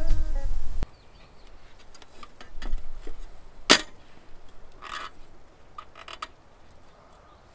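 Guitar music ends abruptly under a second in. It is followed by scattered light clicks and knocks, the sharpest about halfway, and a brief rustle a second later.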